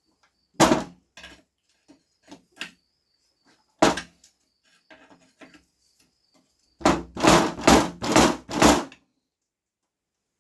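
Steel pry bar knocking and clanking against the F23/H22 manual transmission case as it is levered at the seam to split the bell housing off: one knock about half a second in, another near four seconds, then a quick run of about five knocks near the end, with small clicks between.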